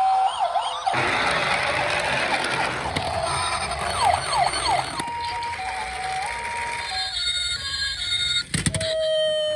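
Electronic siren sounds of toy ambulances and police cars: quick wailing sweeps up and down, then a two-tone hi-lo call, over a steady rushing noise. A sharp knock comes near the end, followed by one slowly falling tone.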